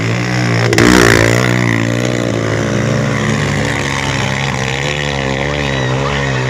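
Trail motorcycle engine revving hard on a steep dirt climb, its pitch wavering up and down with the throttle. It is loudest as the bike passes close, about a second in.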